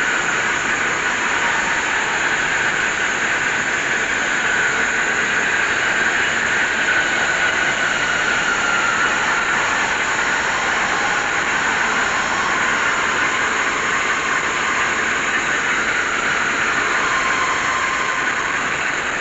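Traub automatic lathe running and cutting metal parts: a steady mechanical noise with a high whine running through it.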